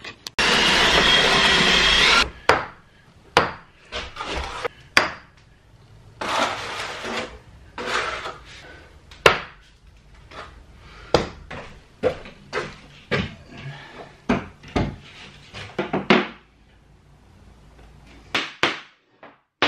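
Dot-and-dab plasterboarding sounds: a trowel scraping and slapping board adhesive, and plasterboards knocked and tapped into place, in many short, irregular scrapes and knocks. It opens with a loud, steady rushing noise lasting about two seconds.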